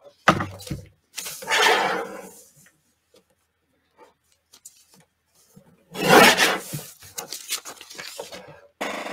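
Swingline paper trimmer in use: a knock near the start, then rasping, rubbing sounds of paper sliding across its bed and being cut. The loudest rasp comes about six seconds in.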